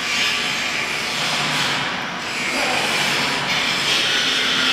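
Steady, even rushing noise of a CO2 laser cutting machine's fans and blowers running, with a slight dip in level about two seconds in.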